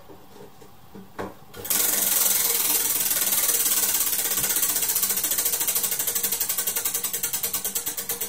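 Tabletop prize wheel spinning, its flapper clicking rapidly against the pegs. The clicking starts abruptly a couple of seconds in and gradually slows as the wheel loses speed.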